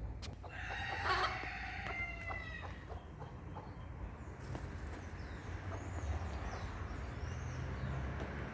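A rooster crowing once, one long call lasting about two and a half seconds. Later come a few faint high chirps from small birds, over a steady low background rumble.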